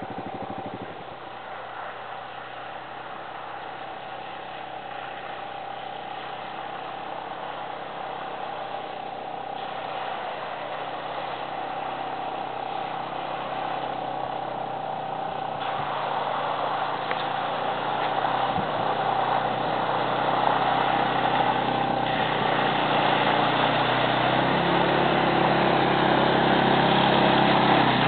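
ATV engine running steadily, growing gradually louder throughout.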